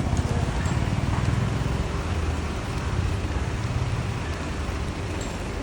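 Road traffic noise: a motor vehicle's engine running close by with a steady low rumble, over an even hiss.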